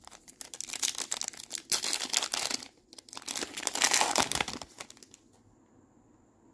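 Foil wrapper of a Topps Chrome Tennis card pack crinkling and being torn open by hand, in two loud stretches over about four seconds, then it stops.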